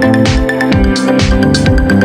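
Electronic dance music with a steady, driving beat of thumping kicks and hissy high hits over sustained synthesizer tones.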